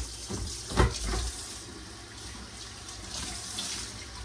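Kitchen tap running into a stainless steel sink as it is rinsed out by hand, with a sharp knock against the sink just under a second in.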